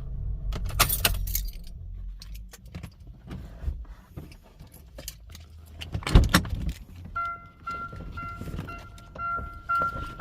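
Car keys jangling and clinking in handling, with a louder knock about six seconds in. In the last few seconds comes a run of short, evenly spaced beeps at one steady pitch.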